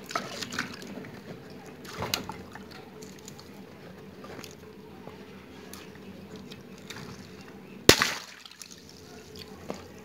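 Small pink water-filled rubber balloon squeezed in the hands with faint wet sounds, then bursting with one loud pop about eight seconds in, water splashing out.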